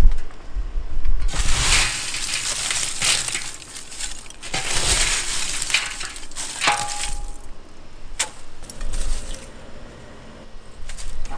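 Hard pieces clattering and crunching together in a dense run of sharp clicks, with one short ringing clink about two-thirds of the way through, then a few scattered knocks.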